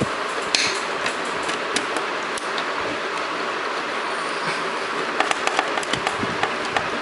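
Small clicks and taps of wire ends and a screwdriver being worked into the screw terminal block of a switch-mode power supply, most of them coming together about five to six seconds in, over a steady hiss.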